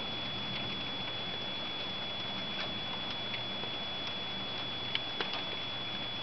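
Steady hiss of rain during a thunderstorm, with scattered light taps. The sharpest pair comes about five seconds in, over a constant high-pitched whine.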